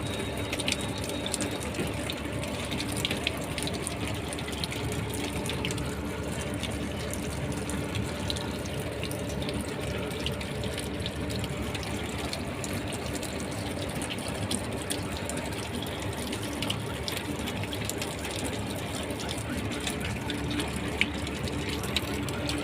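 Water running out steadily from a solar water heater tank being flushed, carrying out scale and dirt.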